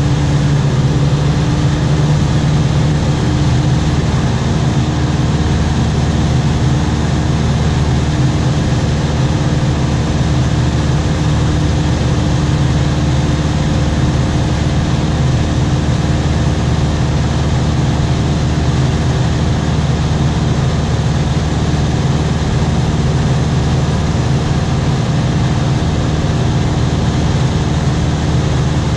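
Aircraft engine droning steadily and evenly, heard from inside the cabin.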